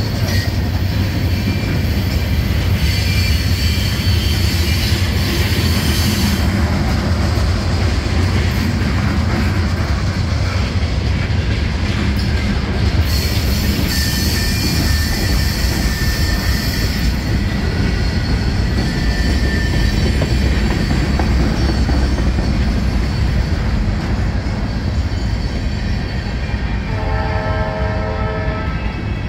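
Freight train of tank cars and covered hoppers rolling past close by: a steady low rumble of wheels on rail with clacking and thin, high wheel squeal. Near the end a brief pitched tone with several notes sounds over the rumble.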